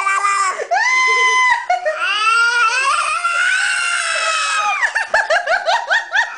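A nine-month-old baby's high-pitched vocal squeals: a held squeal, then long squeals that slide up and down in pitch, then a fast string of short rising squeaks near the end.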